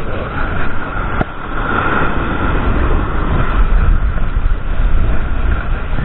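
Strong wind buffeting the microphone, a heavy low rumble rising and falling in gusts, with a single sharp click a little over a second in.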